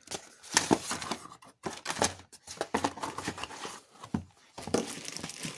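Flat punch-out kit sheets and their plastic packaging being handled and stacked into a box: irregular knocks and clicks with rustling and crinkling, busiest near the end.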